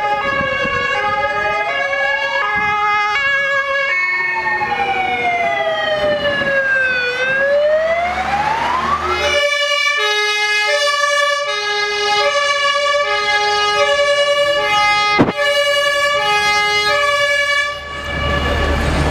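Emergency vehicle sirens: a slow wailing siren rises and falls over a stepped hi-lo siren. About halfway through the wail stops and the hi-lo tones go on alone, with a single sharp click about three-quarters of the way in. Near the end the sirens fade into street noise.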